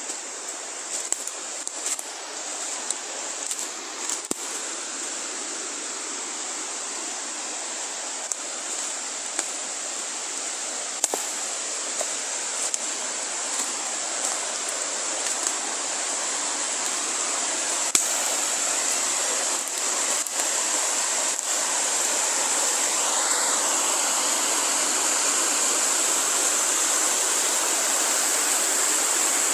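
Rushing water of a rocky mountain stream: a steady rush that slowly grows louder, with a few sharp clicks scattered through it.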